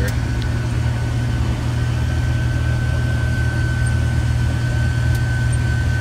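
Case IH combine running steadily while harvesting soybeans, heard from inside the cab: a steady low engine drone with a thin, steady high whine over it.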